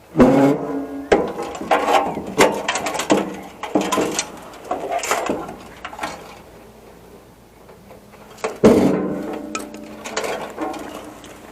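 Metal parts of a server rack clanking and rattling as they are handled and pulled apart, with two loud ringing clangs, one at the start and one about eight and a half seconds in, and smaller clicks and knocks between.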